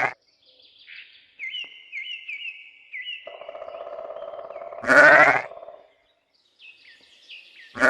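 Sheep bleating: one loud, short bleat about five seconds in over a fainter, drawn-out call, with small birds chirping repeatedly in the background.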